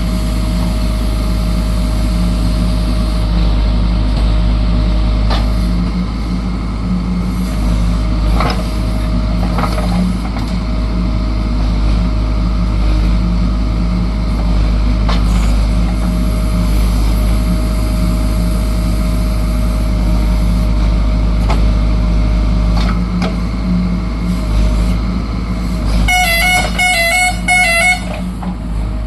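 JCB backhoe loader's diesel engine running steadily under work. Near the end an electronic warbling beep pulses for about two seconds.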